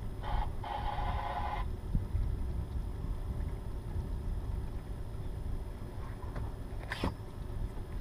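Low, steady wind rumble on the microphone over open water, with a brief high tone about a second in and a single sharp click near the end.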